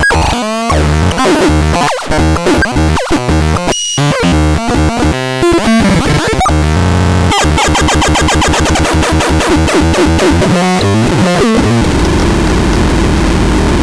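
Synthesizer played in a sound demo: harsh, buzzy electronic tones and noisy effects, with choppy short notes and sudden cut-offs in the first half, then denser continuous noisy drones.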